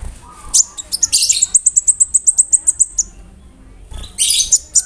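Kolibri ninja (van Hasselt's sunbird) singing: a fast, very high-pitched trill of short repeated notes, about nine a second, lasting about two seconds, then a short dense burst of high notes near the end.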